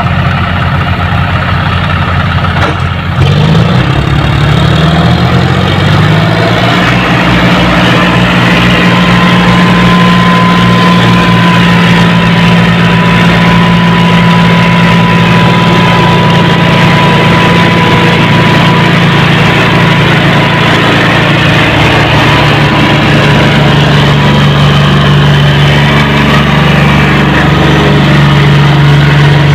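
John Deere tractor diesel engines working under load, pulling a heavily loaded trolley. About three seconds in they rev up and get louder, then hold a steady, heavy note, with a faint high whine for several seconds in the middle.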